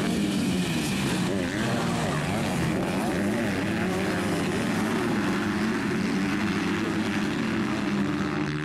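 A pack of 85cc two-stroke motocross bikes racing, several engines buzzing at once and revving up and down over one another.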